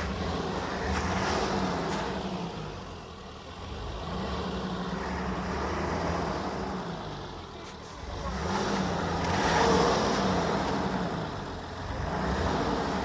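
Car engine revving up and down in repeated surges, the loudest about ten seconds in, as the car struggles to drive through deep snow and is close to getting stuck.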